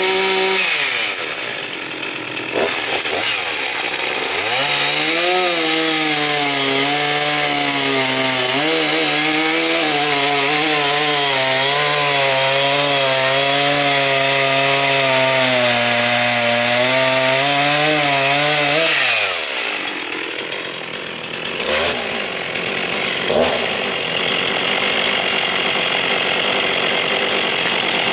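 Husqvarna 261 two-stroke chainsaw cutting a log. The revs fall away early, climb again after a few seconds, and then hold lower and waver for about fifteen seconds as the chain works through the wood. About two-thirds of the way in the engine note drops away, leaving a rougher noise with a couple of knocks.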